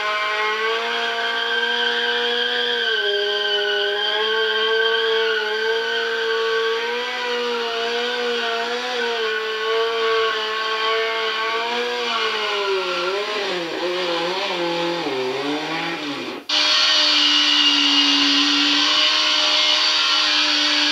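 Kawasaki Z1's inline-four engine held at high revs in a steady drone while the rear wheel spins the bike round in a max turn; the pitch wavers and sinks for a few seconds before a sudden cut. After the cut, another motorcycle's engine is held at a steady, slightly higher pitch while its rear tyre spins.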